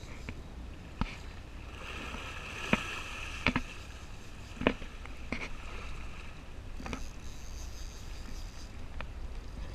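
Fishing boat on the water: a steady low rumble with scattered sharp knocks and clicks on board.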